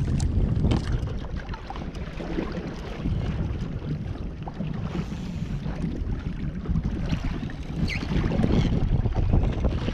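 Wind buffeting the microphone in a steady low rumble, with small water splashes and lapping against a kayak's hull on a choppy sea.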